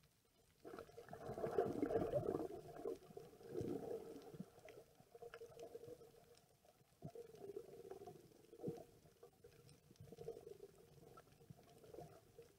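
Muffled underwater gurgling and rumbling of water moving around a submerged camera, in uneven surges with a few short knocks. It is loudest about two seconds in.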